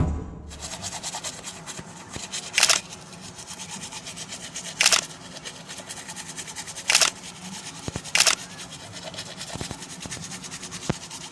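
Four short, sharp strikes, a couple of seconds apart, over a faint steady background noise.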